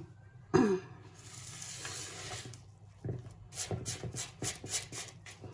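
Silicone spatula scraping creamed butter and sugar around a mixing bowl: a soft rubbing, then a run of short scrapes from about three seconds in. A brief sharp knock comes about half a second in.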